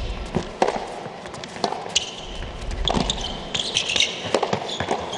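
Tennis ball being struck by rackets and bouncing on an indoor hard court during a rally: sharp hits about every half-second to second, with short shoe squeaks and an arena crowd in the background.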